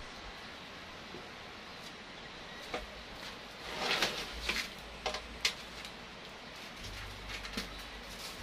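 Short rustles, scrapes and clicks of a bonsai tree and its rock being handled and shifted on a work table, with the biggest cluster about four seconds in, over a steady background hiss.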